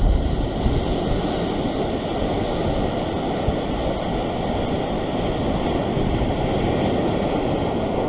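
Ocean surf washing and foaming against the foot of a sheer rock ledge: a steady, unbroken rush of water.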